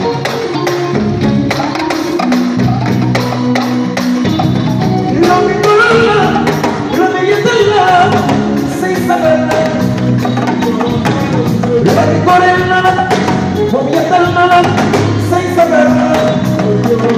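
Live band playing Senegalese mbalax with electric guitar, keyboard and a small drum held under the arm, over a steady beat. A man's singing voice comes in about five seconds in and carries on over the band.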